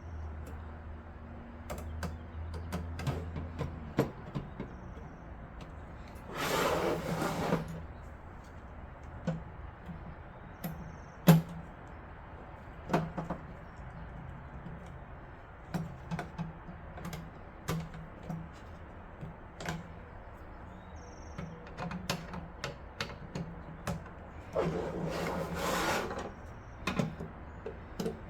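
Screwdriver driving the motherboard's mounting screws into a metal PC case: scattered small clicks and taps of the driver and screws against the metal, with two louder rasping bursts, each about a second long, while a screw is turned.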